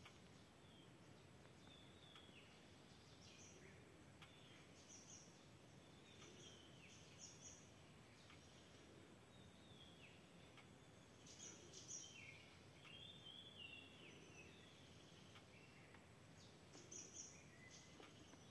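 Near silence: faint background bird calls, short chirps and brief whistled glides scattered throughout over a steady low hiss of ambient noise, with a few calls standing out about twelve and seventeen seconds in.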